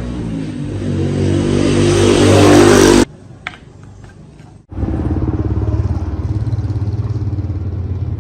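Motorcycle engine running and revving up, cut off abruptly about three seconds in; after a short quieter gap with a single click, the engine runs again with a steady, loud pulsing rumble.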